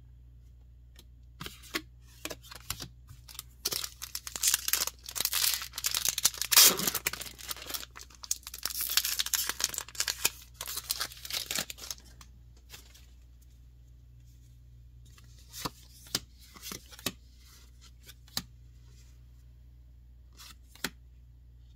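Foil booster pack wrapper being torn open and crinkled: a dense run of tearing and crackling lasting about ten seconds, loudest midway, followed by a few separate light clicks.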